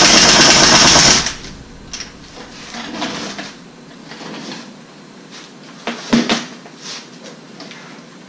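Pneumatic impact wrench hammering rapidly as it drives the screw of a ball joint press to push a broken wheel stud out of the hub; it stops about a second in. Then quieter metal clinks and handling as the press comes off the hub, with one sharp metallic knock near the middle.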